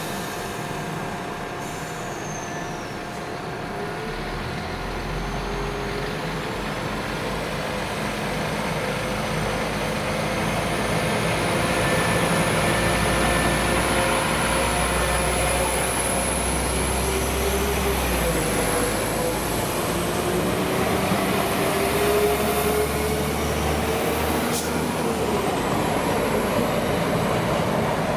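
London Midland Class 172 diesel multiple unit running along the platform line, its diesel engines whining with pitch gliding up and down over a rumble of wheels on the rails. The sound grows louder as the train comes alongside, then holds.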